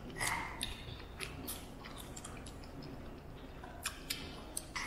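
Close-miked chewing of cold cooked cocktail shrimp, with scattered short wet clicks and smacks of the mouth.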